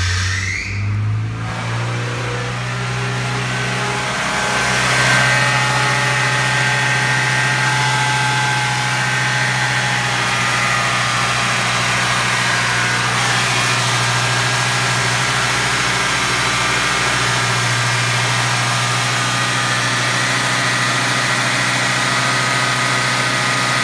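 Audi 80 B3's 1.8-litre PM four-cylinder petrol engine running just after starting: the revs shift in the first couple of seconds, then it settles into a steady, even run.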